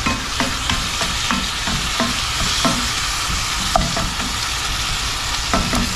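Ground beef and peppers sizzling as they brown in a cast-iron skillet, with a ground beef separator scraping and chopping through the meat against the pan in repeated strokes.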